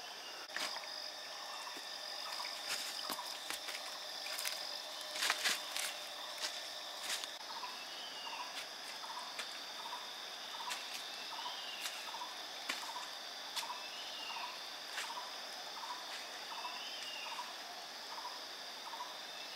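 Tropical forest ambience: a steady high insect drone with a short animal call repeating about twice a second. Footsteps and crackling dry leaves underfoot in the first seven seconds or so, loudest about five and a half seconds in.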